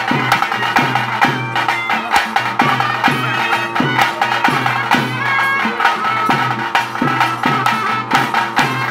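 Traditional nema ritual music played live: drums beating a steady rhythm with a shrill reed pipe playing a melody over them.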